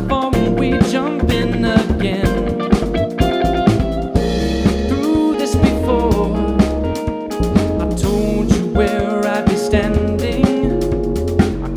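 Jazzy dance-funk band playing live, with drum kit and guitar.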